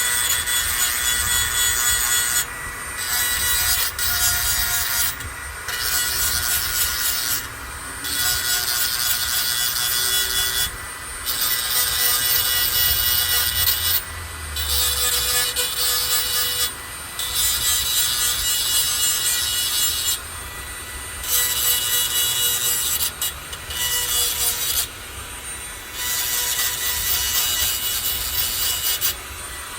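Hand file rasping across the cutting teeth of a hedge trimmer's steel blade to sharpen them. The strokes come in runs of about two to three seconds, with short pauses between.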